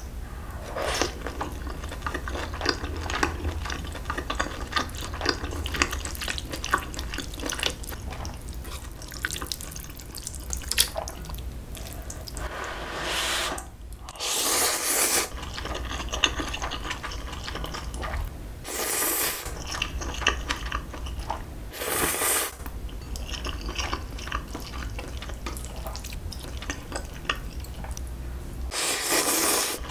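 Close-miked eating: wet chewing with many small mouth clicks as beef rib meat is chewed, then about five loud slurps of curry ramyeon noodles, each about a second long, with chewing between them.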